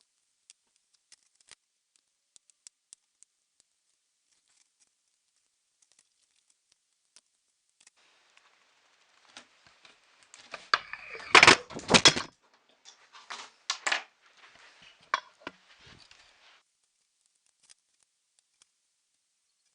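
Small plastic and metal laptop parts and tools being handled during reassembly: scattered light clicks and taps, then a burst of loud knocks and rattling about halfway through, followed by more clicks and rustling.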